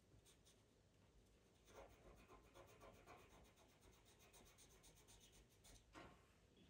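Pastel pencil scratching on Pastelmat paper: faint, short, quick strokes starting about two seconds in, with one firmer stroke near the end.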